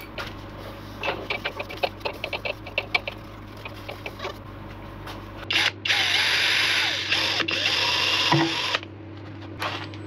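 A run of light clicks and taps, then a cordless drill runs for about three seconds from about halfway through, drilling into the stabilised birch whistle blank held in the lathe chuck.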